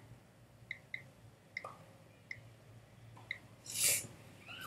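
Faint, short, high ticks at irregular intervals, like the key-tap sounds of a phone's on-screen keyboard. A brief, louder rustle comes near the end.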